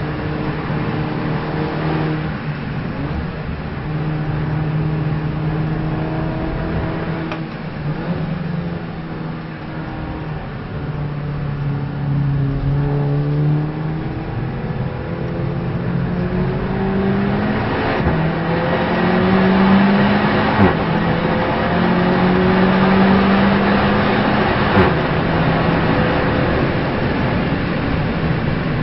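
Race car engine heard onboard during a lap, its pitch rising as it accelerates and dropping sharply at gear changes and on lifting for corners, over steady road and wind noise.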